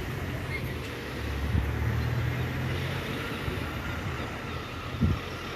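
Street traffic at a pelican crossing: a vehicle engine's low rumble close by, swelling a little between about one and a half and three seconds in, with a short knock about five seconds in.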